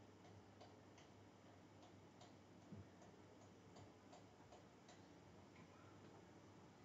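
Near silence: faint, light clicks about two or three a second over a low steady hum.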